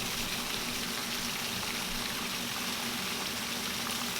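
Very heavy tropical downpour rain falling steadily, an even, unbroken hiss of rain, with a faint steady low hum underneath.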